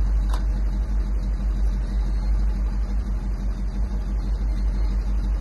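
1970 Dodge D500 dump truck's engine idling steadily with a low, even running sound, freshly revived after five years parked.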